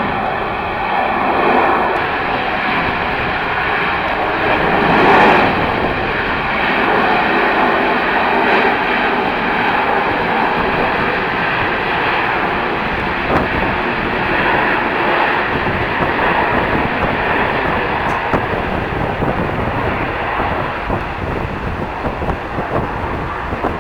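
Jet airliner's engines passing close by as a steady, loud rushing noise, with a faint high whine in the first two seconds. It is loudest about five seconds in and slowly eases off toward the end.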